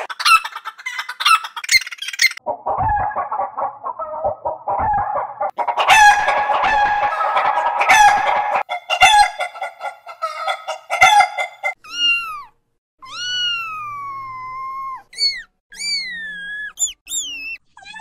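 Chicken clucking and rooster crowing, digitally altered: first a quick run of short, sped-up, high clucks and crows, then from about twelve seconds a warped version of long calls that glide down and back up in pitch.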